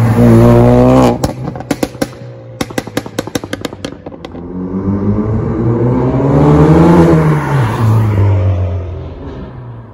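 Stage-1 tuned Ford Focus accelerating hard past, then a rapid run of pops and bangs from the exhaust as the throttle is lifted. Then another pass: the engine note climbs as the car comes up under acceleration, drops as it goes by and fades away.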